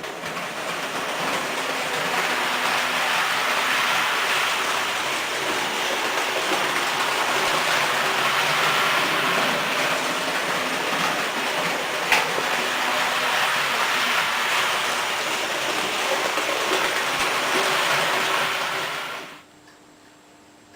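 Märklin H0 model train running on the layout's track: a steady rolling rattle of wheels and motor, with a single sharp click about twelve seconds in. It cuts off suddenly near the end.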